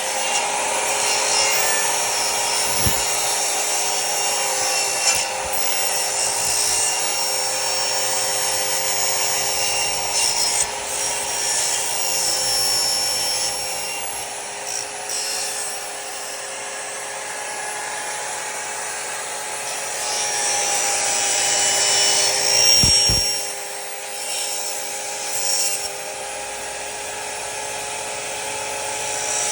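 Electric power tool working wood: a steady motor whine with a rough, rasping cut. It eases off somewhere past the middle and then bears in harder near the end.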